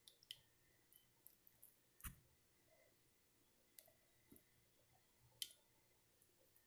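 Near silence with faint, scattered soft clicks and taps from a silicone pastry brush dabbing butter over biscuit dough in a skillet, the loudest about two seconds in and again past the five-second mark.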